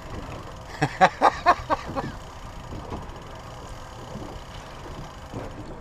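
A few words of a man's voice about a second in, then only steady background noise with no distinct event.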